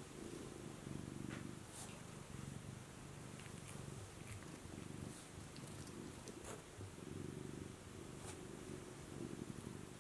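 Domestic cat purring steadily, a low rumble that swells and eases every second or two with its breathing.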